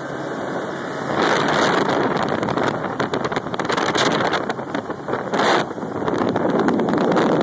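Wind buffeting a phone's microphone in a loud, uneven rush, with a motor vehicle running underneath.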